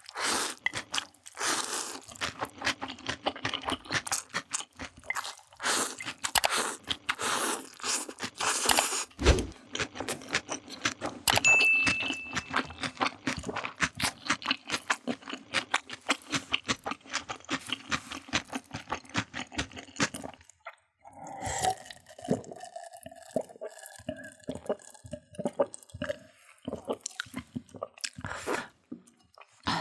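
Close-miked crunching and chewing of food, rapid, irregular crunches one after another. About two-thirds of the way through the crunching thins out and a few held tones come in.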